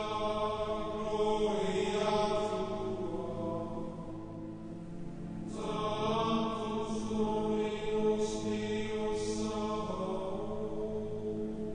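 Background music of slow chanting: long vocal notes held for several seconds over a steady drone, easing off briefly about four to five seconds in before the next held note.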